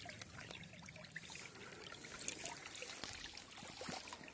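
Thin flow of creek water trickling over the riffles of a small Goldoro Viper gold sluice, a steady light trickle with faint irregular splashes.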